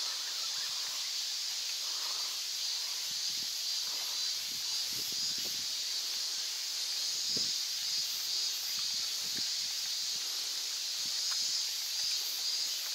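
Steady high-pitched shrill of summer cicadas in the bankside trees, wavering slightly, with a few faint soft knocks.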